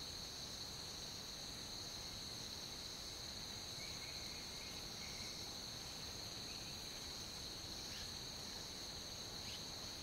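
Steady, high-pitched insect chorus, with a few faint short chirps about four and five seconds in.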